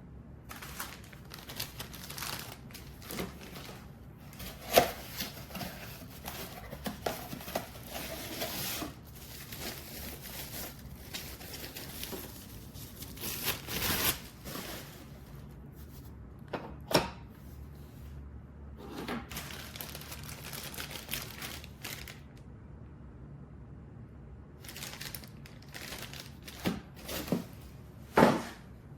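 Crinkling and rustling of something being handled, broken by scattered sharp clicks and knocks, the loudest a few single knocks.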